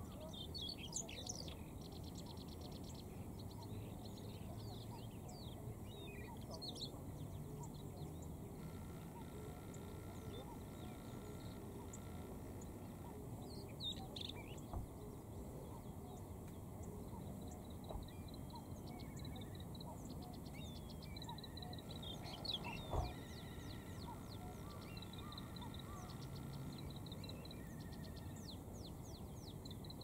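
Male Siberian rubythroat singing: repeated high phrases of quick, varied warbling and trills with short pauses between them, over low steady background noise. A single sharp knock about three-quarters of the way through.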